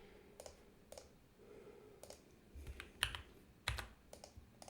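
Faint, irregular keystrokes on a computer keyboard as a command is typed.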